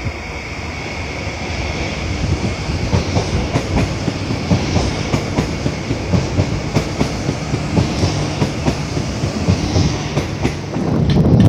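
Rodalies electric commuter train, a Renfe Civia unit, passing close below: a steady rumble with repeated clickety-clack of its wheels over the rail joints, and a faint high whine at the start that fades away. Near the end wind buffets the microphone.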